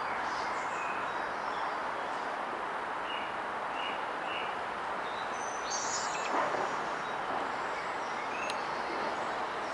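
Small birds chirping in short calls over a steady background hiss, with a brief louder noise about six and a half seconds in.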